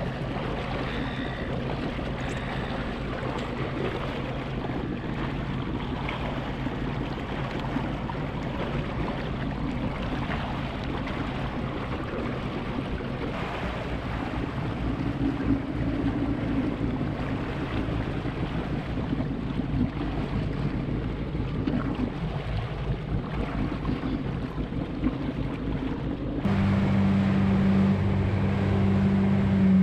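Jet ski engine running steadily at low throttle, then stepping up louder and higher near the end as the throttle opens and the craft speeds up.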